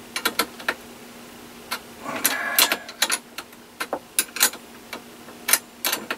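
Irregular sharp metal clicks and clinks of a wrench working a bolt on a battery-bank terminal, with a longer rasping rattle about two seconds in, as the inverter cable is disconnected from the battery bank.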